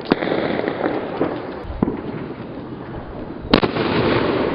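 Consumer fireworks going off: a sharp bang right at the start, a smaller one partway through and the loudest bang about three and a half seconds in, with a rough hiss of noise continuing between them.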